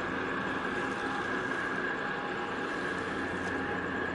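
A large cargo ship's engine and machinery running as it passes: a steady low drone with a steady high-pitched whine over it.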